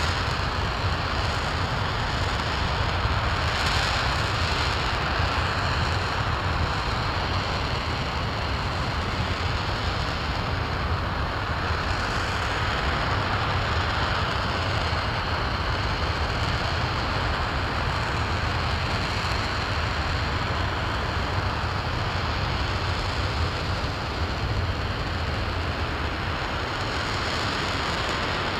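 RS-25 liquid-hydrogen/liquid-oxygen rocket engine firing at steady thrust on a test stand, well into a long-duration test burn: a continuous, even rushing noise with a deep low rumble under it, never rising, falling or breaking.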